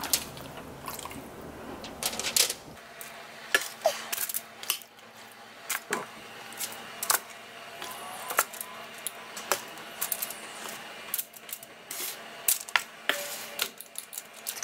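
Metal kitchen tongs clacking and aluminium foil crinkling as chicken pieces are laid one by one on a foil-lined baking sheet: irregular sharp clicks, one or two a second.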